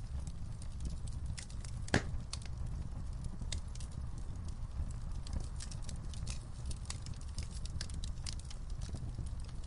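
Fire crackling: a steady low rumble of flames under frequent sharp pops and snaps, with one louder pop about two seconds in.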